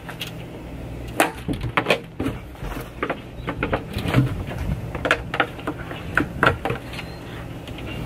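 Plastic 5-gallon water jug bumping and knocking against a storage compartment's floor and wall while being fitted under a bungee cord: a string of irregular short knocks and clicks.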